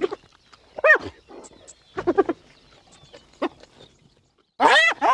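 Hyena calling: short yelping calls that rise and fall in pitch, a brief run of quick giggling pulses about two seconds in, and the loudest pair of rising-falling calls near the end.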